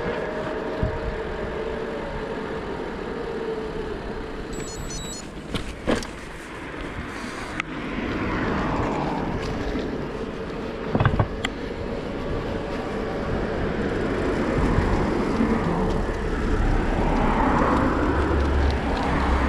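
Wind and road noise from riding a bike, picked up by a GoPro action camera, with two sharp knocks and twice the swelling sweep of a vehicle passing.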